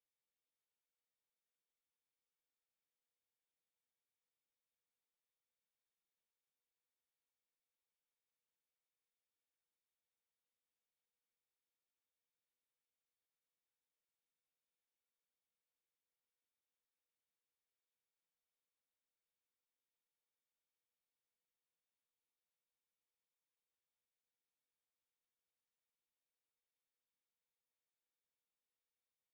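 A 7777 Hz sine test tone: a single high-pitched pure tone, held steady and loud without any change.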